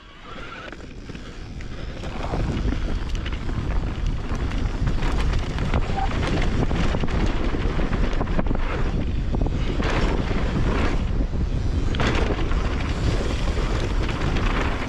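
Wind buffeting a helmet or action camera's microphone as a mountain bike rolls fast down a dirt jump trail, with tyres on loose dirt and short knocks and rattles from the bike over the bumps. The rush builds over the first two seconds as the bike picks up speed, then holds.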